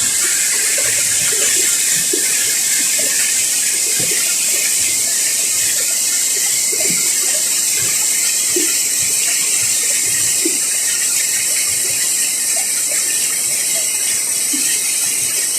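Steady rushing hiss of flowing river water, with scattered short bubbling blips.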